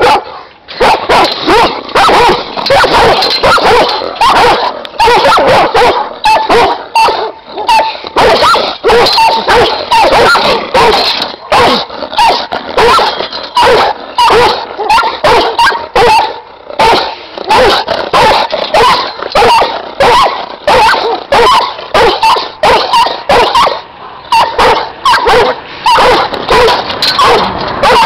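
Giant schnauzer guard dogs barking loudly and without pause, about two barks a second.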